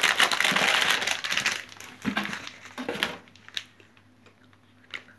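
Sealed plastic toy packets crinkling and rustling as a hand rummages through them in a box. The crinkling is densest over the first two seconds, then thins to a few light clicks and rustles.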